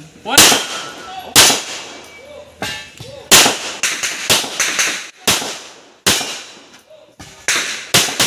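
A pistol fired in a string of about a dozen single shots at an uneven pace, some in quick pairs, each with a short echoing tail.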